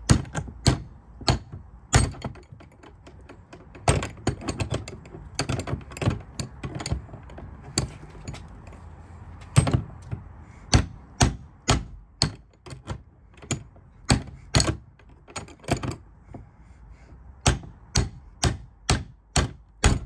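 Crowbar hooked in a cheap padlock's shackle, whacked again and again so the lock clanks against the metal hasp: sharp metal-on-metal knocks about two a second, in runs with short pauses. The padlock holds.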